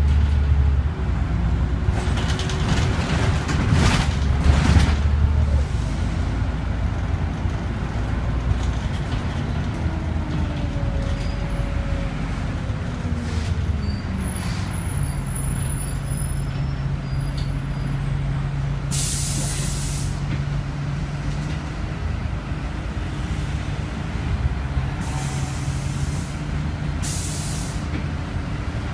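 Interior of a Scania OmniCity city bus on the move: the engine runs under a steady low rumble, its note rising and falling as the bus pulls away and changes speed. About two-thirds of the way through, and twice more near the end, compressed air hisses briefly from the air brakes.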